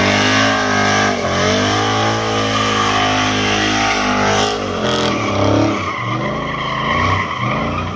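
Pickup truck engine held at high revs during a burnout, its pitch wavering and dipping as the throttle is worked, over the hiss and squeal of spinning rear tyres. A couple of sharp cracks come about halfway through.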